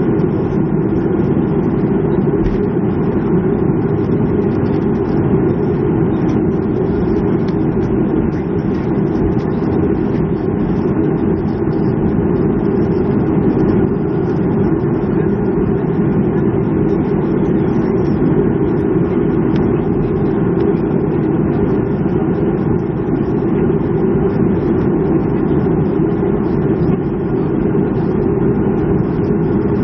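Steady engine and air noise heard inside the cabin of a Boeing 737-300 airliner, a constant deep rumble with faint steady whines above it.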